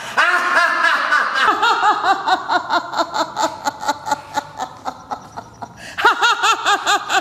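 Hearty open-mouthed human laughter in long rhythmic runs of "ha-ha-ha", about five pulses a second. A fresh, louder peal starts about six seconds in.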